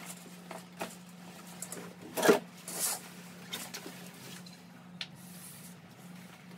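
Bed linen being handled and pulled about: soft fabric rustling and light handling clicks, with a louder swish a little over two seconds in.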